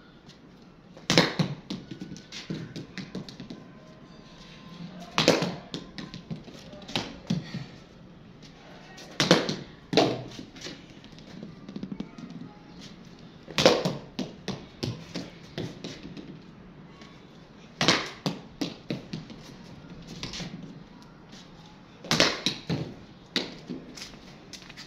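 Cricket bat meeting a ball in repeated defensive shots, a sharp knock about every four seconds, with lighter taps and knocks between the strikes.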